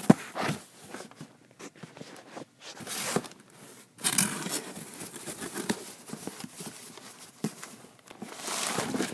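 Cardboard and plastic packaging rustling and crinkling, with scrapes and clicks, as a boxed action figure is worked out of a cardboard shipping box; a sharp knock right at the start.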